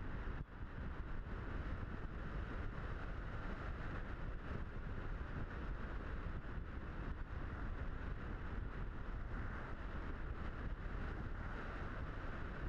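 Steady rushing airflow on the onboard camera's microphone of a Blitz RC Super Skysurfer model plane in flight, as wind buffeting with no clear motor tone.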